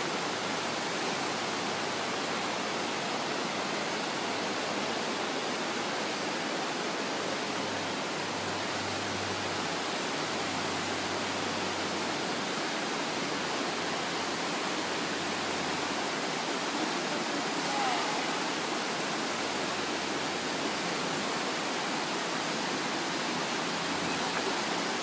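Steady rush of white water from a river tumbling over boulders.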